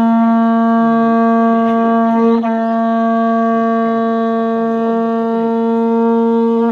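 Horagai (conch-shell trumpet) blown as one long, steady note with a brief waver about two and a half seconds in; the note cuts off sharply at the end.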